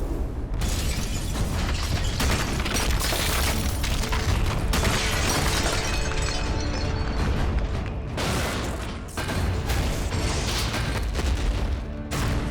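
Dense film battle sound effects of giant robots fighting: heavy booms and clanking metal impacts, with orchestral score swelling underneath from about four seconds in.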